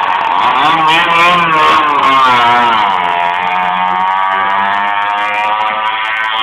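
Sidecar motorcycle engine running under way, its pitch rising and falling several times over the first three seconds, then holding steady.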